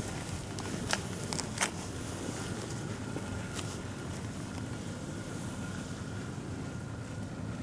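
Steady outdoor background noise, like distant traffic hum, with a few faint clicks in the first few seconds and a faint steady high whine.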